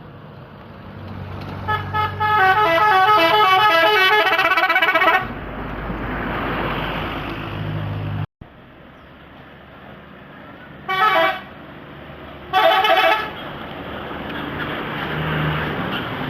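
Bus 'telolet' musical multi-tone horn playing a quick stepping melody for about three seconds, then two short toots later on, over the running of the bus's engine.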